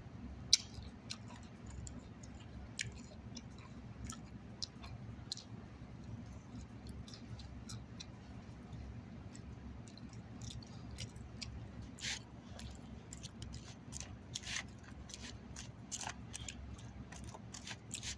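A person chewing grilled chicken salad close to the microphone: many short, irregular wet clicks and smacks of the mouth. A sharp click about half a second in is the loudest.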